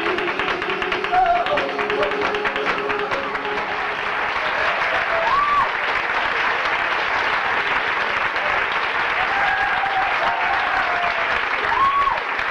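Flamenco music ends in the first few seconds, then the audience applauds and cheers, with a couple of short shouted calls standing out over the clapping.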